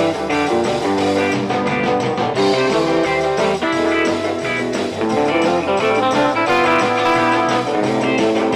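Guitar-led instrumental background music playing throughout.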